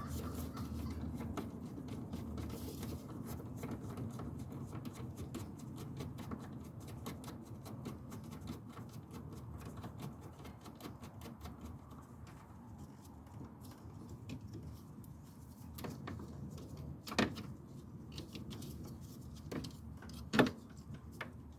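Small clicks and knocks of plastic coolant-system parts and hose clamps being handled in an engine bay, over a steady low hum. Two sharper clicks come near the end.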